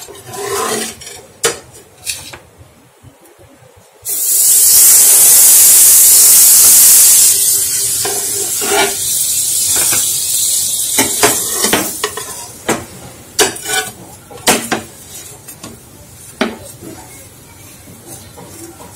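Butter sizzling on a hot non-stick tawa: a sudden loud sizzle starts about four seconds in and eases off over the next several seconds. Clinks and scrapes of a steel spatula on the pan follow.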